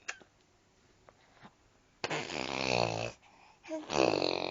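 A few soft clicks, then a toddler's voice making two loud, raspy drawn-out sounds about two seconds in, the first sliding down in pitch.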